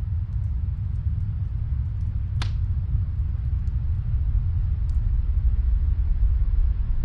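Steady low rumble of snowstorm wind, with a few faint fireplace crackles and one sharper pop about two and a half seconds in.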